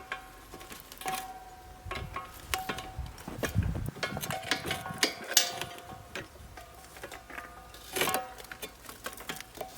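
Irregular metallic clicks and clinks from small hardware being handled, some leaving a short ring, with louder knocks about five and eight seconds in.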